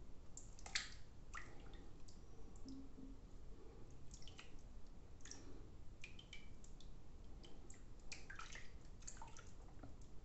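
Faint, irregular wet clicks and squishes of shaving lather on the face as fingers press and touch it.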